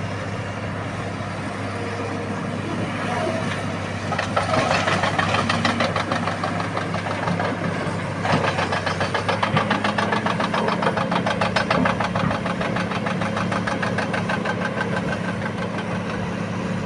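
Excavator's diesel engine running steadily, then working harder with a fast, even pulsing about four seconds in, and again, loudest, about eight seconds in, before easing back.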